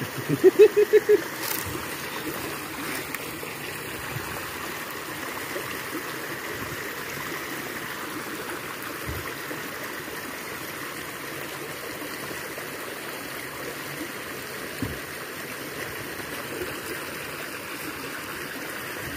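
Small forest stream rushing steadily where it churns over snagged branches and debris. At the very start, a person's voice gives a short run of about six quick sounds.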